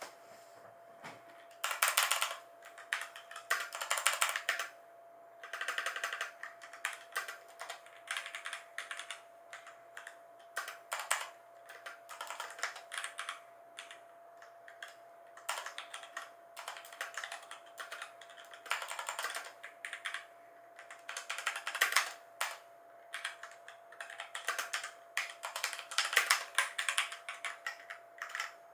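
Typing on a Razer BlackWidow Lite mechanical keyboard with Razer Orange tactile switches: quick runs of key clicks in bursts of a second or two, with short pauses between them.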